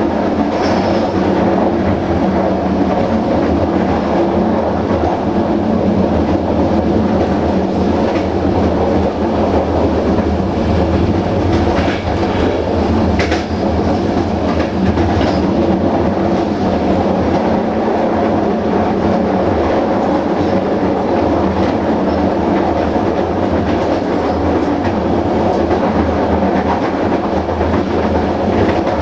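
Passenger train running steadily along the track: a continuous rumble of wheels on rail, with a few clicks as the wheels cross rail joints.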